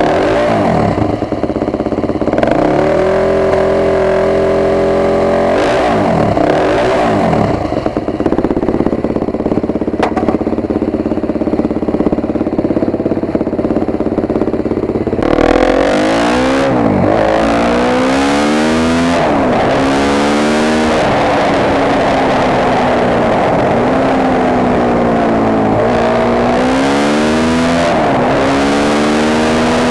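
KTM 250 EXC-F single-cylinder four-stroke dirt bike engine, freshly rebuilt top end on its first ride, idling with a couple of throttle blips, then about halfway pulling away and accelerating, the revs rising and dropping with each gear change.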